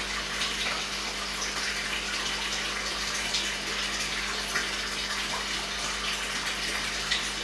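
Water rushing and splashing steadily into an aquarium, like a filter return or pump outflow, with a steady low hum beneath and a few slightly louder splashes.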